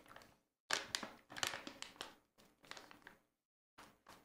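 Crinkling of a plastic bag of sour gummy candies, handled and rummaged in, in several short bursts with a brief pause in the second half.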